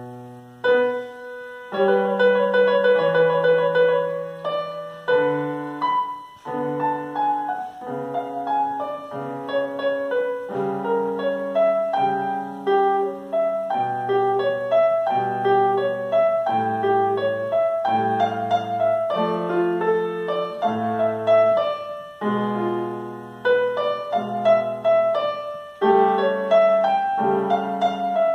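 Grand piano played solo: chords under a melody, in phrases with short breaks between them.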